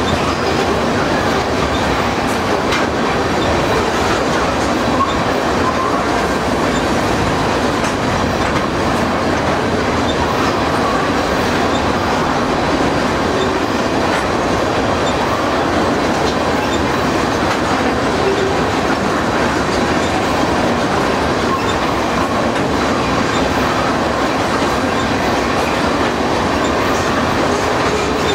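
Tank cars of a crude oil train rolling past: steady rolling noise of steel wheels on the rails, continuous and unchanging in loudness.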